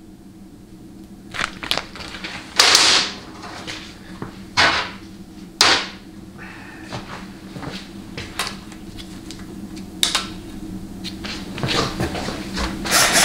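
Workshop handling noises: a dozen short clatters and rustles as tools and small parts are picked up and set down on a transmission valve body, over a steady low hum.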